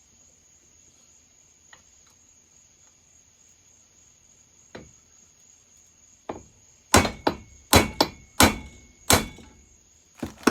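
Sharp hammer whacks on a part of a Pioneer Farmsaw chainsaw, struck to knock a stuck part loose. Two single knocks come about halfway through, then a quick run of about seven hard strikes with a faint metallic ring.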